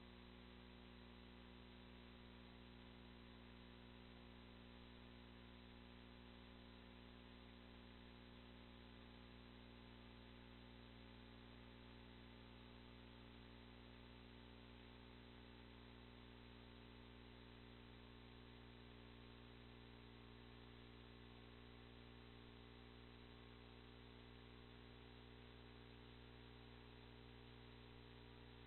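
Near silence: a faint, steady electrical hum with hiss, unchanging throughout, with no other sounds.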